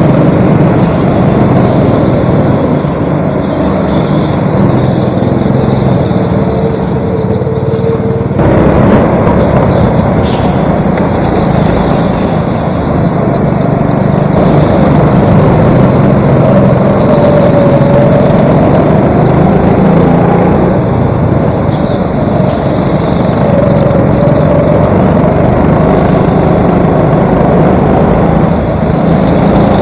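Go-kart engine running at speed, heard from on board, its pitch rising and falling as the kart goes through the corners. The sound changes abruptly about eight seconds in.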